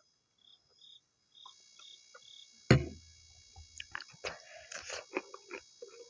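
Chewing and wet mouth sounds of someone eating maize dhido with stinging-nettle (sisnu) curry, in scattered short clicks and smacks through the second half, with a single sharp knock about three seconds in.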